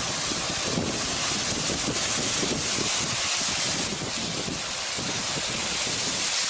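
Wind buffeting the microphone: a steady rushing noise with flickering low gusts.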